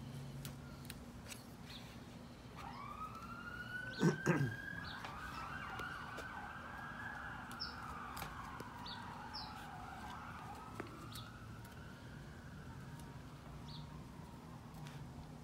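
A distant emergency siren wailing, rising about two and a half seconds in, wavering up and down, and fading out after about ten seconds. Faint clicks of a V-shaped carving tool cutting nodes out of a dragon fruit stem run underneath, with a brief louder sound about four seconds in and a couple of short high chirps.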